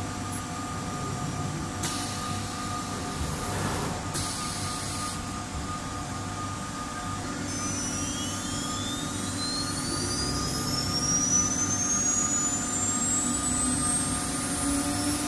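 STM1325CH CNC router running with a steady hum and fixed whine, broken by two short hisses about two and four seconds in. From about eight seconds a spindle spins up, a whine rising steadily in pitch, as the horizontal spindle moves in on the door's edge.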